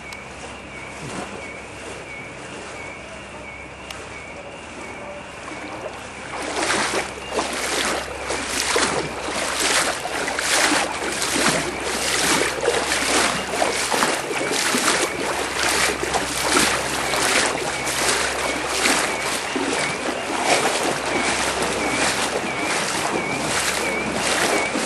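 Rhythmic splashing through floodwater, starting about six seconds in and going on at roughly one and a half strokes a second, like steps wading through the water. A faint high chirp repeats about twice a second under it.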